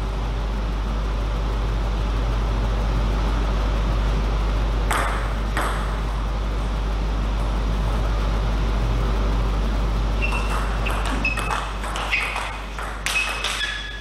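Celluloid-type table tennis ball clicking off bats and the table in a rally that starts about ten seconds in, each hit with a short high ping. A steady low hum runs underneath.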